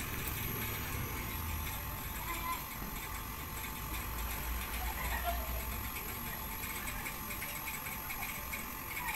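Daikin inverter air conditioner's outdoor unit running steadily under test, with a low, even hum from the compressor. Its refrigerant circuit runs on a capillary tube fitted in place of the faulty electronic expansion valve.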